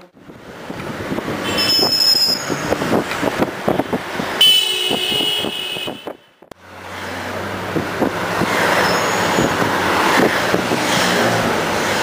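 Downtown street traffic: passing vehicles with knocks and rattles, and a short, high, horn-like toot about four and a half seconds in. The sound breaks off suddenly a little after six seconds and picks up again as steadier traffic noise with a low hum.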